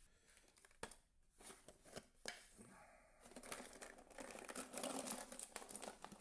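Hand rummaging through a clear plastic jar packed with tangled cables and plugs, the cables rustling and clattering against the plastic. A few faint knocks come first; the continuous rustling starts about three seconds in.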